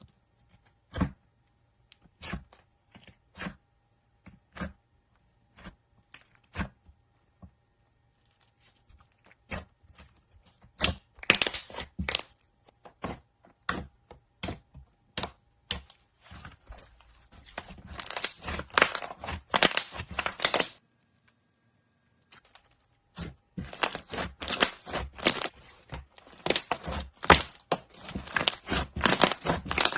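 Slime with clay mixed in being pressed and stretched by hand, giving sharp crackling pops and clicks. These come one by one for the first several seconds, then build into dense runs of crackle.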